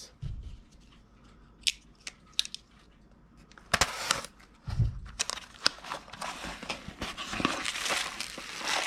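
A box of packaging being opened and rummaged through by hand: a few light clicks, taps and soft bumps, then from about four seconds in, steady crinkling and rustling that gets busier toward the end.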